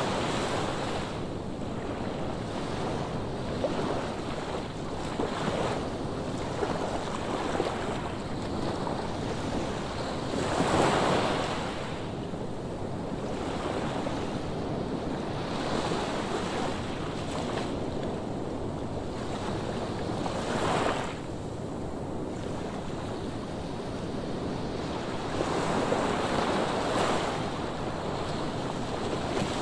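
Ocean surf breaking on the shore: a continuous wash of water with several louder surges as waves break, the biggest about a third of the way in. Wind noise on the microphone.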